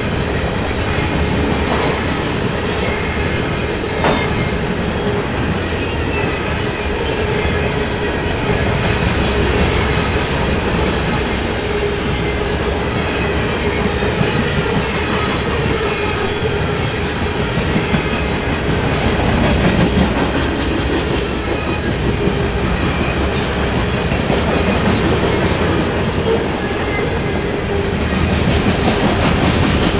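Freight train of grain hopper cars rolling past close by: a continuous steel-wheel rumble with sharp clacks now and then as wheels cross rail joints, and a steady whine from the wheels.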